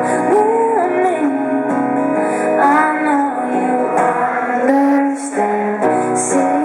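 Live music: a woman singing a gliding melody over sustained instrumental accompaniment, with no bass below about 100 Hz.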